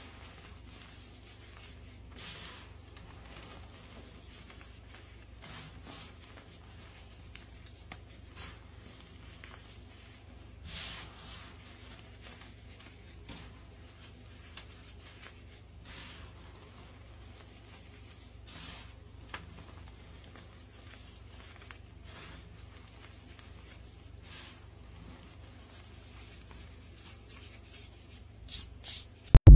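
Hands crushing and rubbing crunchy chunks of reformed baking soda into powder: soft crumbling and rubbing with short crunches every few seconds, over a faint steady low hum. A few sharper crunches come near the end, followed by a sudden loud burst right at the close.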